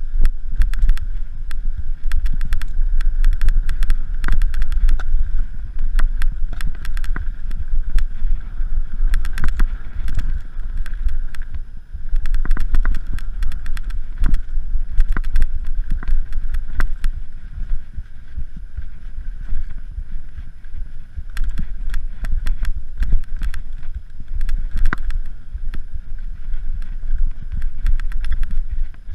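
Mountain bike being ridden over bare rock and a dirt trail: a steady low rumble with frequent sharp rattles and clicks from the bike as it goes over bumps.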